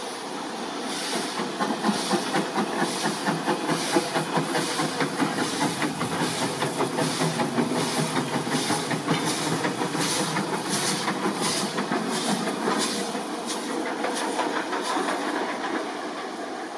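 Lancashire & Yorkshire Railway 0-6-0 saddle tank steam locomotive No. 51456 working steam, with regular exhaust chuffs about two a second over a steady steam hiss. The beats fade near the end.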